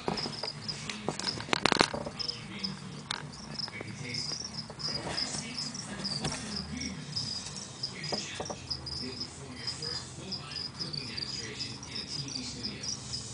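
A cricket chirping: a high, even chirp repeated several times a second. A cluster of sharp clicks about a second and a half in is the loudest thing.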